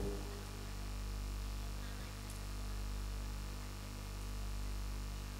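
Steady electrical mains hum from the microphone and sound system: a low, even buzz with several overtones, swelling and easing slightly.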